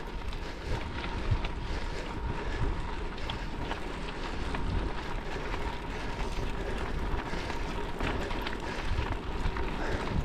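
Wind buffeting the microphone over the steady rolling noise of gravel bike tyres on a dirt and gravel road, with scattered small clicks of loose stones.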